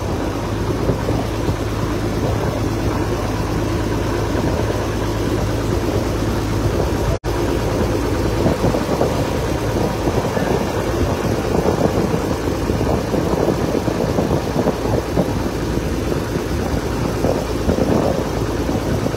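A river ferry boat's engine running steadily while the boat is under way. A low hum in it stops about seven seconds in, where the sound cuts out for an instant.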